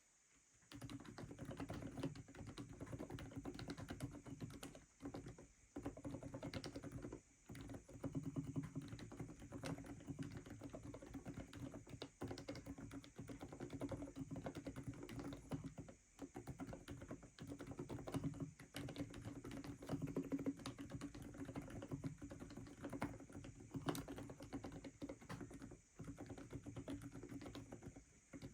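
Aula F87 Pro mechanical keyboard with low-noise switches being typed on fast and continuously, a dense run of soft key strokes broken by a few short pauses.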